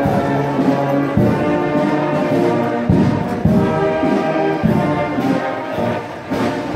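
Brass band playing a slow piece in held notes that change every second or two.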